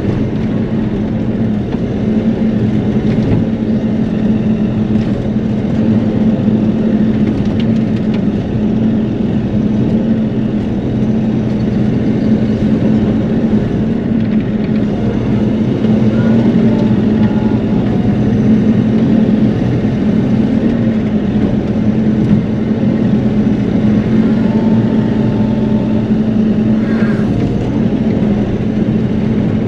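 Bobcat E42 mini excavator's diesel engine running steadily as the arm and bucket work, heard from inside the cab as a steady drone.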